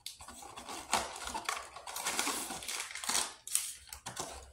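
Handling noises at a countertop: paper rustling and light clinks and knocks against a stainless steel mug, with one sharper knock about a second in.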